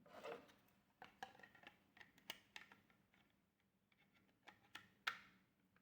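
Faint, scattered clicks and taps of small hardware parts being handled and fitted together while a ZimaBlade mini computer is reassembled.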